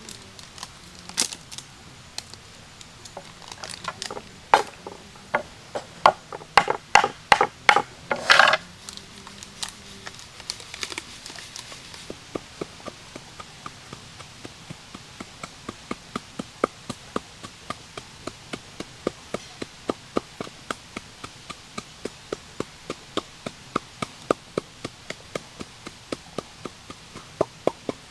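A knife chopping on a wooden cutting board in quick, irregular strokes for the first several seconds. Then, from about eleven seconds in, a wooden pestle pounds in a wooden mortar at a steady beat of about three strikes a second.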